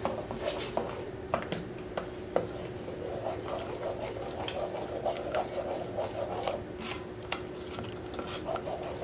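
A spatula stirring a butter sauce in a saucepan: irregular light clicks and scrapes of the spatula against the pot, with a faint steady hum underneath.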